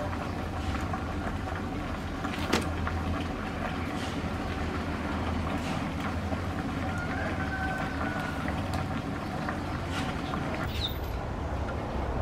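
Wood fire burning in a clay stove under a lidded wok steamer of boiling water: a steady low rumble with a few sharp crackles, the loudest about two and a half seconds in.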